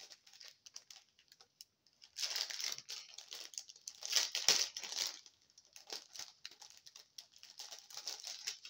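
Small clear plastic bags of diamond-painting rhinestones crinkling as they are handled, loudest from about two to five seconds in, then lighter crackles.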